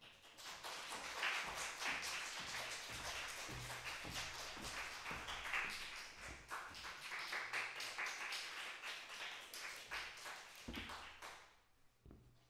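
Audience applauding in a small concert hall, a dense patter of many hands clapping that dies away near the end.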